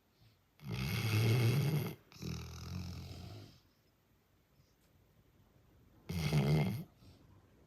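A person snoring really loud in deep sleep: a long rattling snore about half a second in, a weaker one right after it, then another shorter snore after a few seconds' pause.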